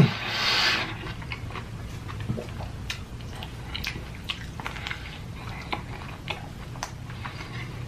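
A person eating a messy mouthful of burger and cheese sauce: wet, open-mouthed chewing with irregular smacks and clicks. A short moan at the very start.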